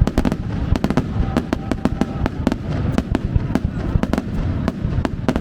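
Aerial fireworks bursting in rapid succession, many sharp bangs a second over a continuous low rumble of further explosions.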